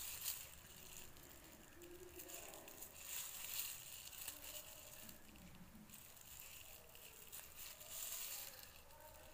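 Faint crinkling and rustling of thin plastic bag strips being pulled through loops with a crochet hook, in uneven bursts that swell about three seconds in and again near the end.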